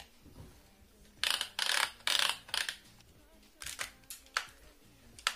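Hard plastic body of a KEYNICE clip-on mini fan knocking and scraping in the hands: a run of loud rough rubbing noises, then a few short sharp clicks as its spring clip is handled.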